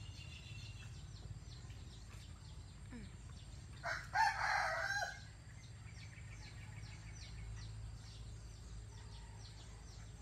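A rooster crows once, about four seconds in, a short lead-in note followed by a longer call of about a second. Faint high chirps repeat in the background.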